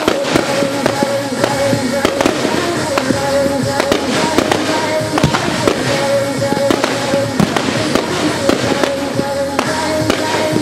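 Aerial firework shells bursting in a rapid, continuous string of sharp bangs and pops, with music playing under them.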